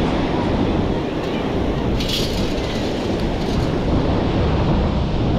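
Ocean surf breaking on the shore under a heavy rumble of wind on the microphone, with a brief hiss about two seconds in.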